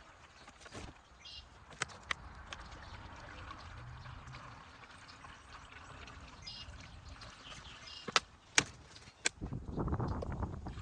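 Coolant being poured into the skid steer's radiator, a steady trickle of liquid, with a few sharp clicks near the end.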